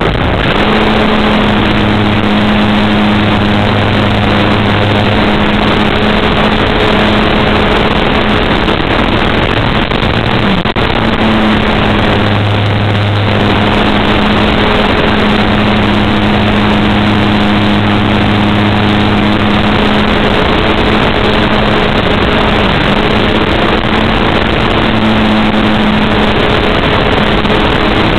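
Model airplane's motor running steadily in flight, a hum holding nearly one pitch under a heavy rush of wind noise, heard from a camera mounted on the plane.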